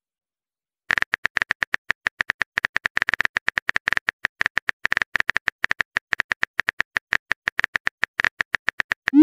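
Phone keyboard typing sound effect: rapid key clicks, several a second, starting about a second in and running on, with a short rising swoosh at the very end as the message is sent.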